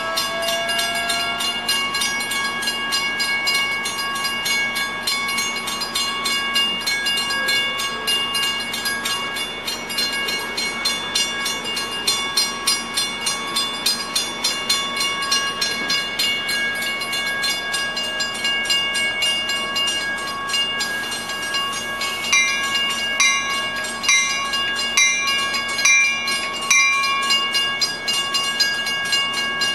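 Railroad grade-crossing warning bells ringing rapidly and steadily while a Metra commuter train of bilevel cars rolls through the crossing into the station. A slightly rising tone fades out within the first couple of seconds.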